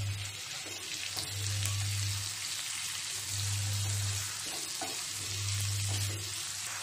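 Raw prawns and chopped garlic sizzling in hot olive oil and butter in a nonstick pan, stirred with a wooden spatula that scrapes the pan now and then. A low hum comes and goes about every two seconds underneath.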